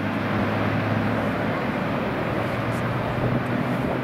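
Steady airport ambience: an even rumbling noise with a low steady hum underneath, the sound of jet engines and apron machinery in the distance.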